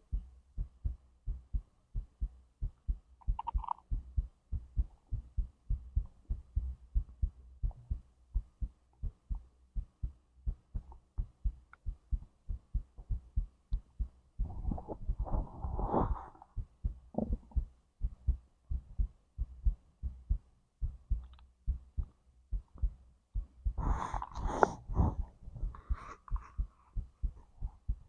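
A person's heartbeat heard through the abdomen: steady low thumps, about two a second. A few stomach and intestinal gurgles break in over it: a short one early, a longer one about halfway through, and a cluster near the end.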